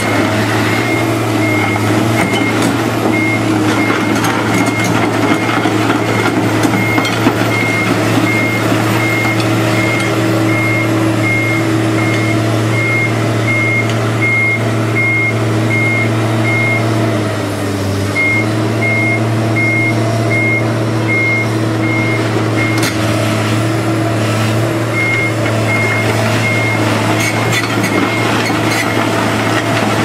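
Komatsu PC210LC excavator's diesel engine running under working load, with its travel alarm beeping steadily about one and a half times a second as the machine moves. The beeping pauses twice, and the engine note dips briefly about two-thirds of the way through.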